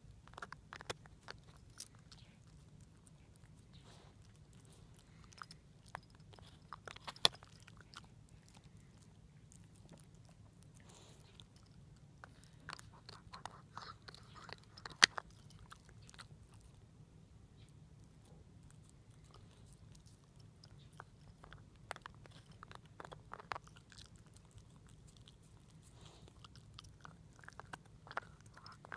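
Shiba Inu gnawing on a hard Himalayan cheese chew: irregular crunches and clicks of teeth on the chew in scattered bursts, with two sharp cracks about seven and fifteen seconds in.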